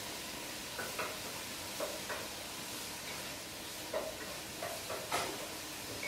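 Steady background hiss with a few short, faint clicks and knocks scattered through it, the sharpest about five seconds in.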